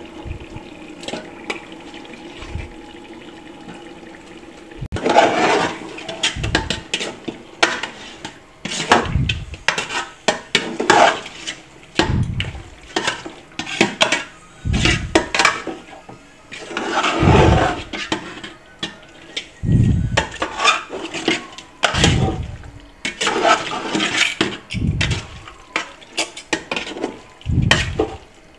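Chicken pieces being stirred into thick masala in an aluminium pot. Starting about five seconds in, it gives wet, squelching strokes and the utensil scrapes and knocks against the pot, one stroke every second or two.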